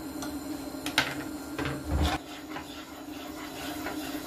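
A spatula scraping and knocking in a frying pan: a sharp clack about a second in, a dull knock about two seconds in, and lighter scrapes and taps. A steady low hum runs underneath.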